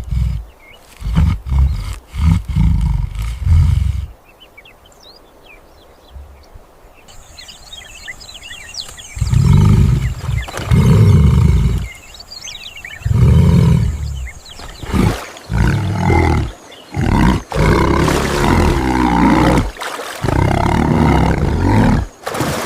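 Big cat roaring and growling: a series of deep, loud roars of about a second each, with a quieter pause partway through.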